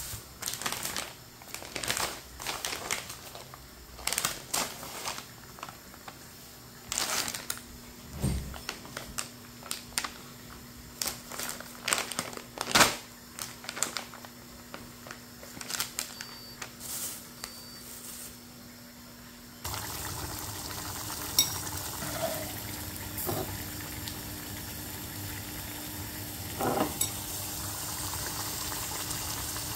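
Plastic grocery bags and snack packets crinkling and rustling as they are handled, in many short crackles. About two-thirds of the way in the sound cuts to a pan of curry simmering on the stove: a steady bubbling with a low hum and a few clinks against the pan.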